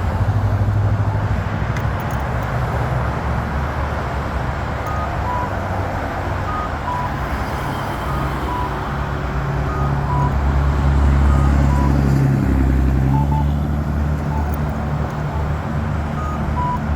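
Campbell accessible pedestrian push button repeating a short two-note beep, high then low, about every second and a half from about five seconds in, over steady traffic with a vehicle passing loudly near the middle. The button keeps making the sound, a sign that something is wrong with it.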